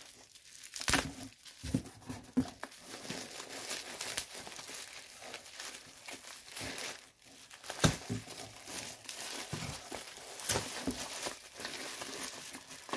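Plastic bubble wrap crinkling and rustling as it is handled and pulled open by hand, with irregular crackles and a few louder snaps.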